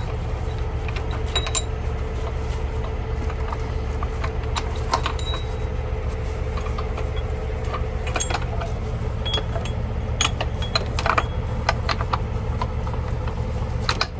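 Log truck's diesel engine idling steadily, with scattered clinks and clanks of heavy steel chain links being handled at the trailer hitch, most of them from about eight to eleven seconds in.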